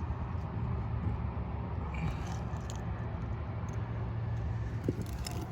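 Distant highway traffic: a steady low rumble with a faint engine hum, and a single light click near the end.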